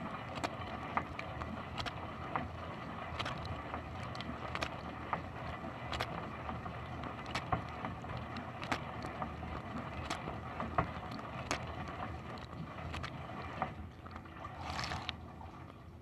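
Inside a running dishwasher: the wash pump hums while water sprays from the rotating spray arm and splashes on the tub and rack, with many sharp ticks of water striking close by. Near the end comes a brief hissing surge, and then the spray runs a little quieter.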